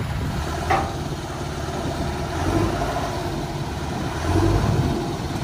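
Terex telehandler's diesel engine running under load as it lifts steel beams off a flatbed trailer, swelling briefly about four and a half seconds in.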